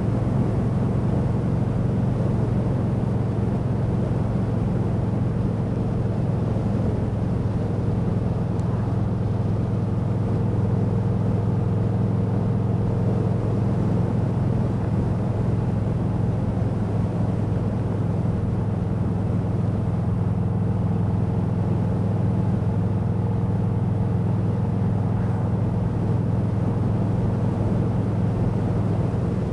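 Yamaha V-Star 1300's V-twin engine running at a steady cruising speed, with an even drone that holds its pitch throughout.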